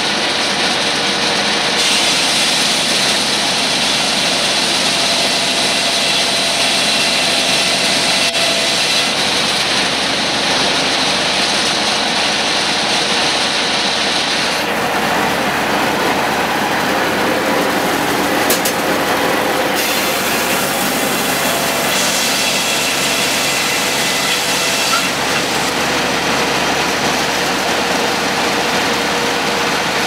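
A circular sawmill is running under power from an International UD18 engine, with the blade sawing boards off a log. It makes a loud, steady mechanical noise. A high whine carries through roughly the first half and drops away about halfway through.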